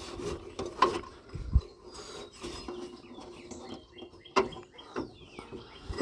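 Rubber drive belt being worked off a lawn tractor pulley by hand: scattered rubbing and scraping, with two sharp knocks, about a second in and past the four-second mark.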